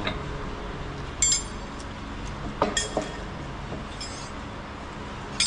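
Sharp metallic clinks of a wrench working on the centre fitting of a pipe plug in a steel pipe end: one ringing clink about a second in, a quick cluster of three around three seconds in, and another at the end, over a steady low hum.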